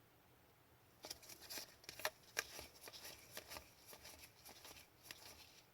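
Upper Deck hockey trading cards being handled and flipped through by hand: a run of faint, quick rustles and clicks starting about a second in.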